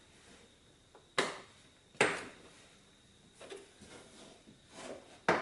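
Plastic trim clips of a 2014 Renault Koleos tailgate's interior panel snapping loose as the panel is pried off: sharp snaps about a second in, at two seconds and a loudest one near the end, with softer clicks and rustles of the panel between.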